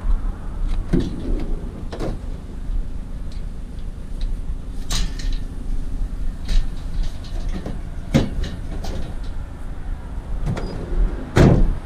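A vehicle running with a steady low rumble while loose scrap metal clanks and knocks at uneven intervals, the loudest knock near the end.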